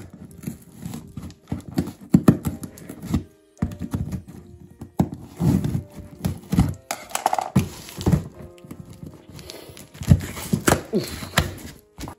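Scissors snipping and sawing through packing tape and cardboard on a shipping box, with irregular knocks and thuds as the box is held and its flaps are pulled open. Faint music runs underneath.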